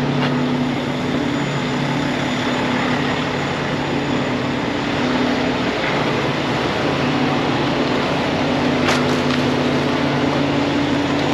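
Steady mechanical drone of the tanker's hydraulic offload pump running off the truck, with two short clicks near the end.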